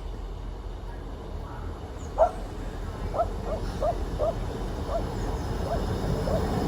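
A dog yapping: a loud yip about two seconds in, then a run of short, high yips at roughly two a second.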